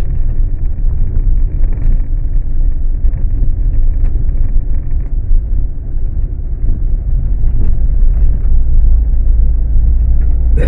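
Loud, steady low rumble throughout, with no clear engine tone.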